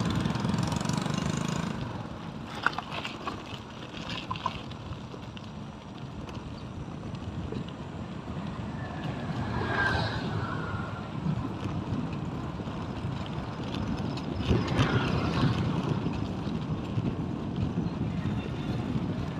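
Road vehicle noise: a steady rumble with louder swells about ten and fifteen seconds in, as of vehicles passing close by.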